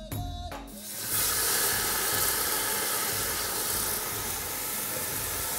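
Coconut milk hitting hot oil and spices in a metal cooking pot, starting suddenly about a second in and sizzling with a steady hiss while it is stirred.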